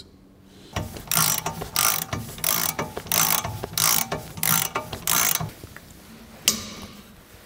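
Ratchet wrench driving in the new rear wheel hub bolt, its pawl clicking in about ten quick back-and-forth strokes, then a single sharp click near the end as the long wrench is pulled.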